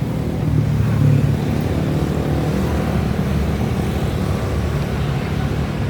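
Large road vehicle's engine running with a steady low rumble under general road traffic noise.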